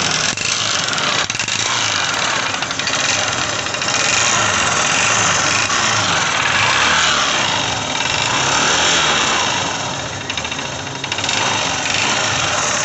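Honda Shine's single-cylinder four-stroke engine running with a loud 'kar-kar' knocking rattle from the cylinder. The noise comes from a worn piston, which was cured by fitting a new piston and cylinder block kit.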